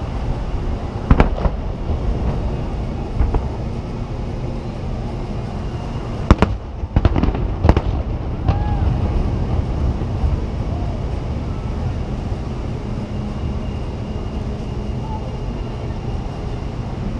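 Aerial fireworks shells bursting. A couple of sharp bangs come about a second in and another near three seconds, then a cluster of loud bangs between about six and eight seconds, over steady background noise.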